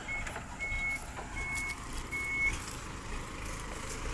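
Sugarcane truck's reversing alarm beeping four times at a steady pitch, evenly spaced about two-thirds of a second apart, then stopping about halfway through, over the low rumble of its engine.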